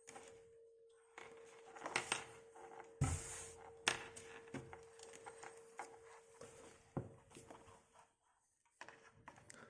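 Hands handling a panel-mount push button and its cables: scattered knocks, clicks and rustling, the loudest knocks about three and four seconds in. A faint steady hum runs underneath.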